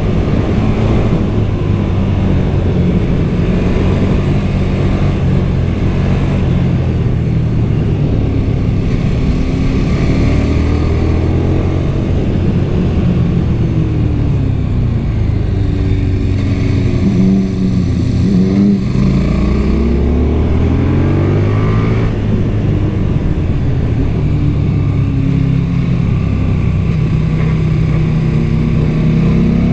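KTM 1290 Super Duke R's V-twin on its stock exhaust, heard from the bike while riding: the engine note holds steady, then around the middle falls and climbs again several times as the bike slows and pulls away, before settling back to a steady pull.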